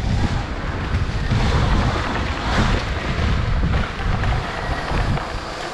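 Wind buffeting the microphone of a camera carried on an electric dirt bike ridden around a dirt track, a steady rushing with heavy low rumble.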